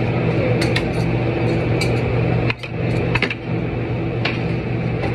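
A steady mechanical hum with a few sharp clinks and knocks over it.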